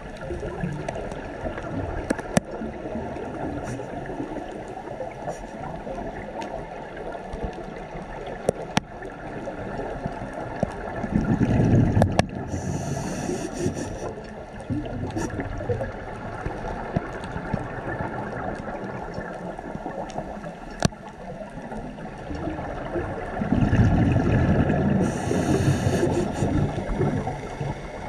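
Muffled underwater water noise picked up through a camera's waterproof housing, with scattered sharp clicks. Twice, about twelve seconds apart, it swells into a louder low rushing that ends in a brief hiss.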